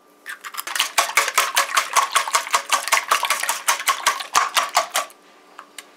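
Eggs being beaten in a stainless steel bowl: a utensil clinking rapidly against the metal bowl, about six strokes a second, stopping about five seconds in.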